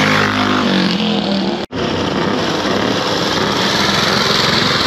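Vintage motorcycle engines passing close by. The first one's note falls away in the first second, then an abrupt cut leads to another old single-track machine's engine running with rapid, even firing beats.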